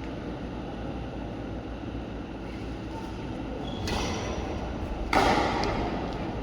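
Badminton play in an indoor hall: a steady low background hum, then sharp racket hits on the shuttlecock in the second half, the loudest a hard hit about five seconds in.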